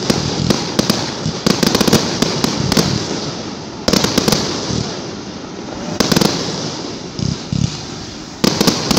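Fireworks display: aerial shells bursting with repeated sharp bangs, some in quick clusters and a few loud single booms, over a continuous crackle of sparks.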